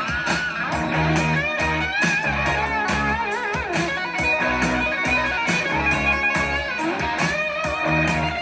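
Rock-blues music with a lead electric guitar bending notes over bass and a steady drum beat, played through a JBL Charge 5 portable Bluetooth speaker.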